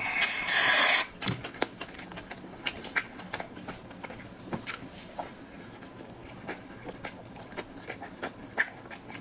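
Eating sounds: scattered soft mouth smacks and small clicks while someone chews food, after a short burst of noisy rustle in the first second.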